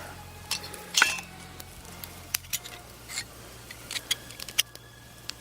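Small metal parts of a camping alcohol-stove kit clinking and clicking as a slotted cross-shaped pot stand is handled and fitted. A scatter of sharp clinks, the loudest about a second in.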